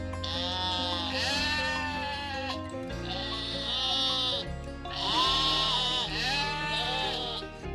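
Several bleating calls from a sheep or goat, each about a second long with a wavering, arching pitch, over steady background music.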